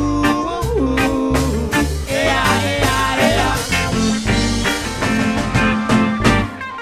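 Live reggae band playing. A sung 'ooh' is held and bends down in the first second, then the band carries on instrumentally with a steady bass-and-drum beat and melodic lines on top.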